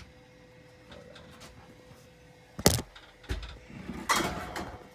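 Handling noises: one sharp clack about two and a half seconds in, then a thump and a rustling scrape near the end, over a faint steady hum.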